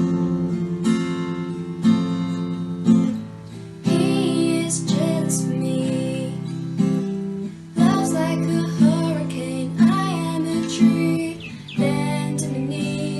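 Acoustic guitar strumming steady chords, with a woman singing a worship-song melody over parts of it.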